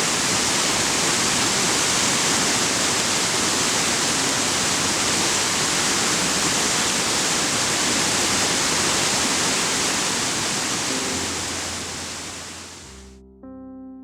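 A steady, loud rushing hiss of a natural Yellowstone feature, fading out a second or two before the end. Piano music begins near the end.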